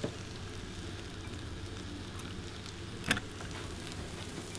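Couscous patties frying in a pan of oil, a steady soft sizzle, with one short knock about three seconds in.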